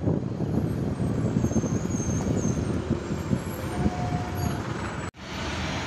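Steady rumble of a motorcycle ride in road traffic: the bike's engine and road noise, following a van and buses. The sound drops out for an instant about five seconds in.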